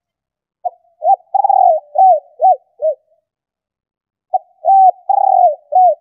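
Female spotted dove cooing: two phrases of short hooked coos, each about two and a half seconds long with one longer note in the middle. It is a female's call, used to prompt newly caught males to coo.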